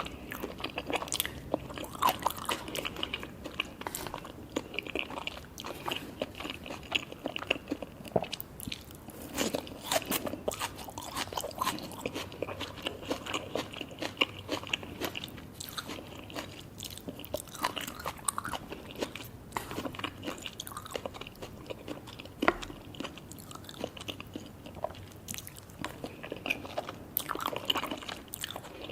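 Close-up biting and chewing of sushi hand rolls: crisp nori wrappers crunching, with many quick, irregular crackles and wet chewing throughout.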